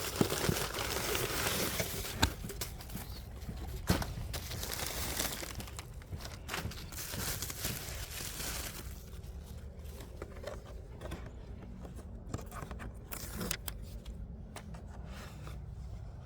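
Packaging crinkling and tearing as a diecast model car is unboxed, with scattered small clicks and taps. The rustling is busiest for the first half, then thins to occasional clicks.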